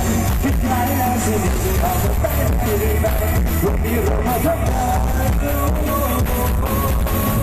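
Loud music with heavy bass and a singing voice, played through the speaker stacks of a Thai parade sound truck (rot hae).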